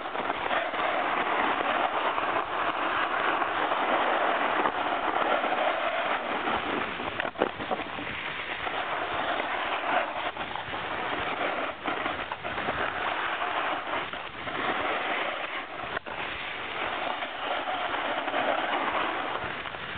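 Snowboard sliding and scraping over packed snow during a run: a continuous rough hiss that swells and fades every few seconds.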